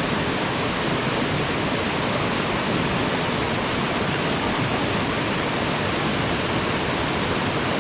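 Waterfall pouring, a steady dense rush of falling water.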